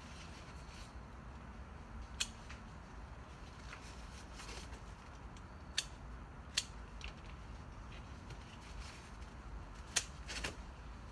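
A few sharp, scattered clicks as ripe tomatoes are picked off the vines, over a faint steady hum.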